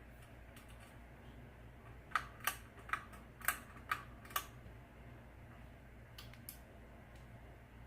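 Hampton Bay Southwind ceiling fan running on the floor with a steady low hum. About two seconds in, six sharp clicks come over roughly two seconds, then stop.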